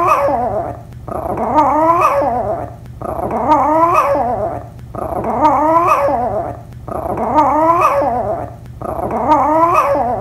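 Yorkshire terrier giving a string of drawn-out calls, a cross between a howl and a growl, each wavering up and down in pitch. They come about every two seconds, six of them in a row.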